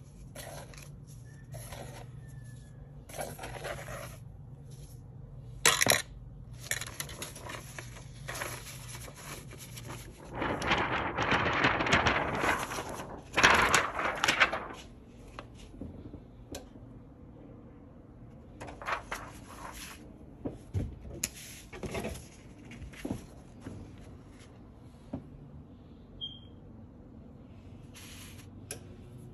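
Rustling, scraping and light knocks from handling a powder-coated PET transfer film, with a louder stretch of rustling about ten to fifteen seconds in.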